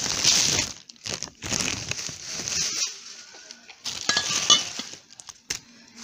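Ice cubes rattling and crunching as they are tipped in among drinks inside black plastic bin bags, with the plastic crackling. Glass bottles clink, most clearly about four seconds in.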